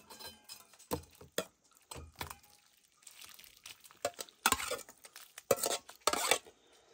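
A utensil stirring and scraping against a dish, with irregular clinks. The scrapes are louder and longer in the second half.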